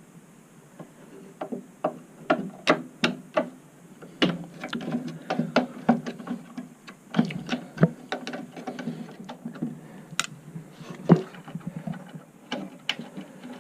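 Irregular clicks and light metallic taps of hand tools backing out the machine screws that hold the head of a Gottlieb woodrail pinball machine onto its cabinet.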